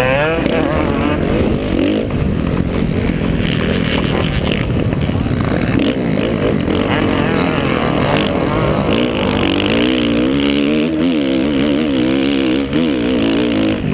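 Small-displacement 50cc youth motocross bike engines racing, their pitch rising and falling as the throttle is worked, with other bikes running close ahead.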